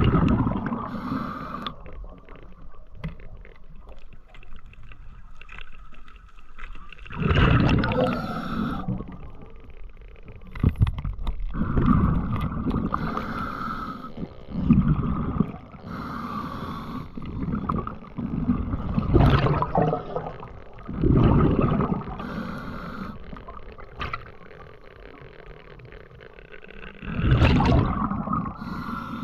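A diver's breathing heard underwater: surges of rushing air and bubbling every few seconds, irregularly spaced, over a low murky underwater background.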